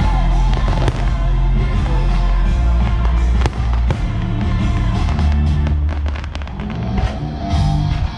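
Loud music with fireworks bursting over it: two sharp bangs about three and a half seconds in, then a run of rapid crackling around six seconds in.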